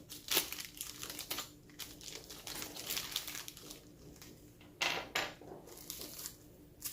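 Small accessory packaging being opened and handled by hand: scattered crinkles, clicks and light taps, with a few sharper clicks near the start and about five seconds in.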